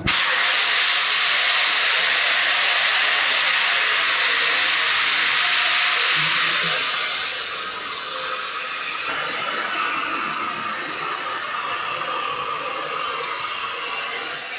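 Venturi chemical injector running with a steady, loud hiss of water rushing through it. The hiss starts suddenly and eases slightly about seven seconds in.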